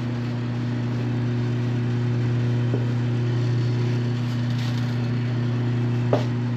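Mayflower 950 tire changer's electric turntable motor running with a steady low hum, spinning the wheel as the duckbill works the tire's lower bead off the rim.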